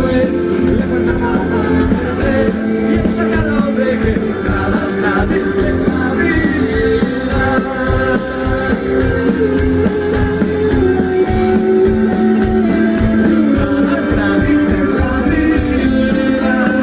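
Live rock band playing: electric guitars, bass and drums with keyboard, and a lead voice singing over them, recorded from within the crowd.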